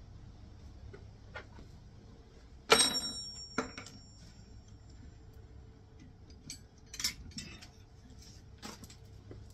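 A sharp metallic clank about three seconds in that rings briefly, followed by lighter clicks and clinks of metal hand tools being handled.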